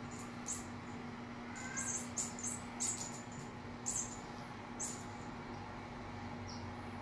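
Short high-pitched chirps, about ten of them at irregular intervals and all at the same pitch, from a cat wand toy being waved and batted. A steady low hum runs underneath.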